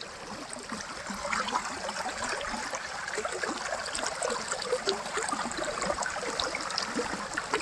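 Running water, a small stream burbling steadily with many little splashes and gurgles, a little louder from about a second in.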